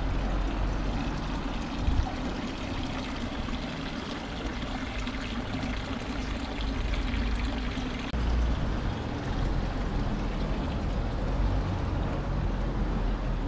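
Steady running water with a constant low rumble underneath.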